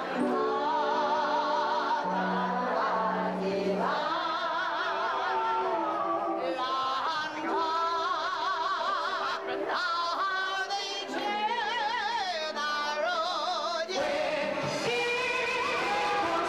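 A singer performing a slow Chinese-language ballad live with a band, holding long notes with a wide vibrato.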